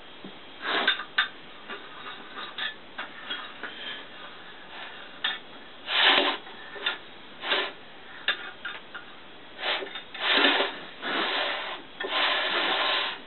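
Steel and cast-iron parts of a lathe chuck being handled and adjusted by hand: irregular clicks and knocks with scraping, and several longer metal-on-metal scrapes near the end.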